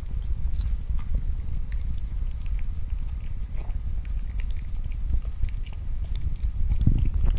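Poodle eating soft mashed potato salad from a ceramic bowl: continuous wet chewing and licking with small clicks. A steady low rumble runs underneath.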